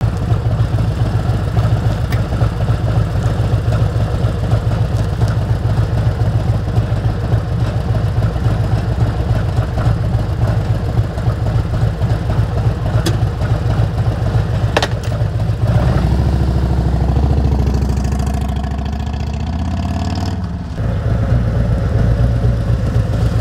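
Harley-Davidson FLHX Street Glide's V-twin engine running steadily at idle, then revved up and let fall back about two-thirds of the way through before settling again.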